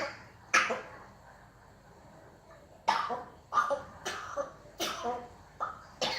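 A parrot making cough sounds in imitation of a human smoker's cough: one short cough about half a second in, then a run of about six quick coughs in the second half.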